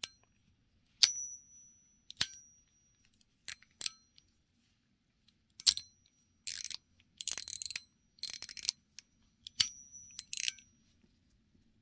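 Yolo No Fire lighter-style fidget being flicked open and snapped shut: sharp metal clicks, most followed by a short high ping like a DuPont lighter's. Near the middle come a few seconds of quicker clicking and rattling.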